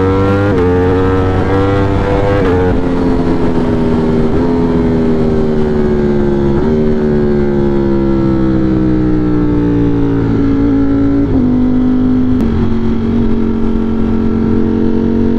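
Ducati Streetfighter V4's V4 engine, heard from the bike: it is rising in revs at first and shifts up about half a second in, then the revs fall gradually as the bike slows off the throttle, settling to a steady cruise over the last few seconds. Wind rush runs underneath.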